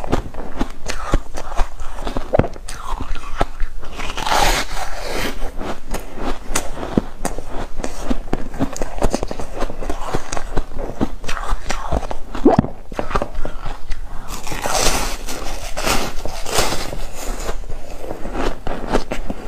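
Close-up biting and crunching of soft frozen foam ice: a dense run of crisp crackles and crunches, with two longer, louder crunching spells about four and fifteen seconds in.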